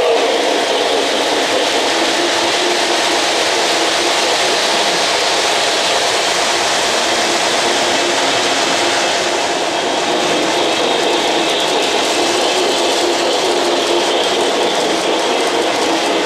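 O-gauge model trains running on three-rail track: a steady rolling rattle of metal wheels on the rails, with the hum of the locomotive motors.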